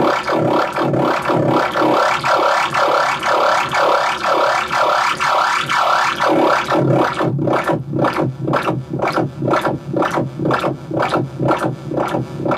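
Make Noise Eurorack modular synthesizer patch playing through an MMG filter, with Maths modulating it: rhythmic sweeps rising and falling about twice a second, turning into faster, sharper pulses about seven seconds in as the filter knobs are turned.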